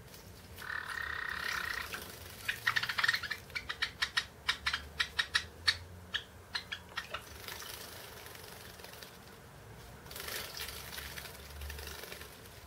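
Java sparrows at a shallow water bowl: a short chirping call about a second in, then a rapid series of sharp clicks and splashes for several seconds as a bird bathes, and a hissing burst of splashing near the end.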